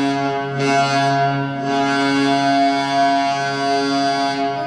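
NHL arena goal horn, the St. Louis Blues' horn, sounding one long, steady, deep blast.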